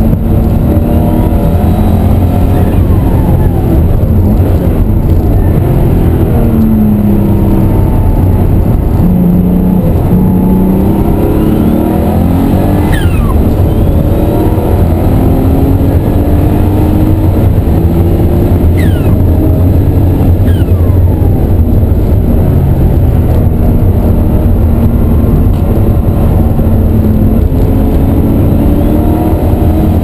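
Cabin sound of a 1988 RUF CTR 'Yellow Bird' at racing speed: its twin-turbocharged engine runs loud under hard load, its pitch climbing in repeated runs and dropping back at each gear change and lift.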